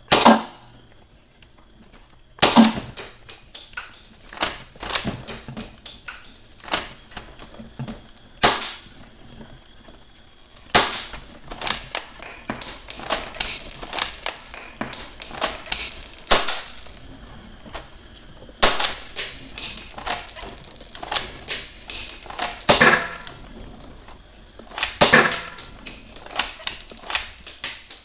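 Plastic toy Cheytac M200 dart sniper rifle being worked and fired: bursts of sharp clicks, clacks and rattles lasting several seconds each, with short pauses between, and one sharp hit right at the start.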